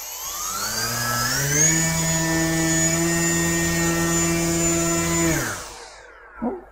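Electric motor and propeller of a small foam RC model plane spinning up over about a second and a half, then held at a steady whine at part throttle, then spinning down near the end. This is a static thrust test: the model is held nose-up, and the motor pulls enough to carry the plane's own weight without full throttle.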